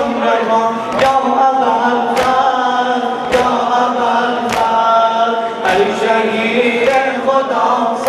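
Men chanting a Muharram mourning lament in unison while striking their chests with their hands together in time (sinezani): a sharp slap roughly once a second over the steady chant.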